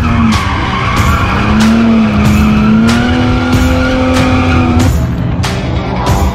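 Drift car sliding, with its engine held at high revs and its tyres squealing. A steady beat of music runs underneath.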